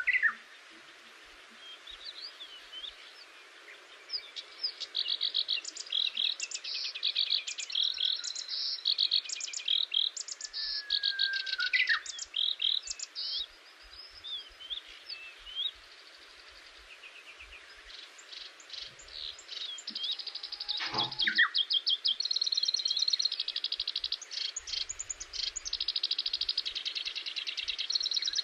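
Songbirds singing: fast trills of rapidly repeated notes and short chirps, in two long bouts with a lull of a few seconds in the middle. A steady low hiss lies underneath.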